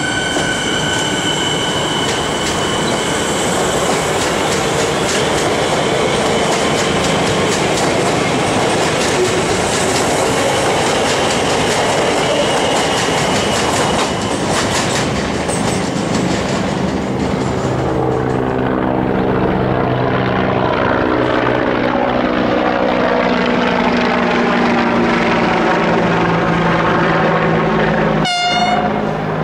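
Melbourne suburban electric trains running through the station. A high wheel squeal fades out over the first two seconds, then comes the rumble and clickety-clack of wheels over the rail joints and points. In the second half a low, steady train hum builds as another train approaches.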